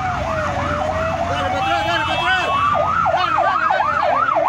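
Two emergency vehicle sirens sounding at once. One is a slow wail that falls and then climbs over a few seconds; the other is a fast yelp warbling about four times a second.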